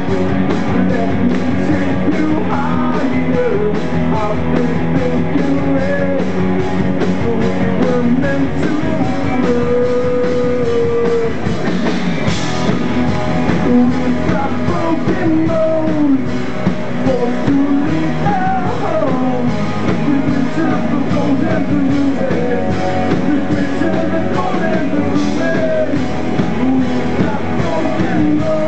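Rock band playing live, with electric guitars, bass and drums under a male lead singer.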